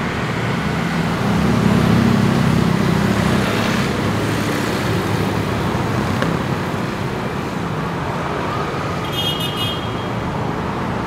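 Steady city street traffic, with a vehicle engine swelling louder as it passes close a second or two in. Near the end a short high beep sounds briefly.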